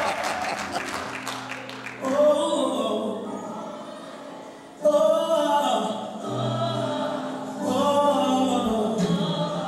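Applause tapering off, then a gospel song starting about two seconds in with a choir singing. The voices come in louder about five seconds in.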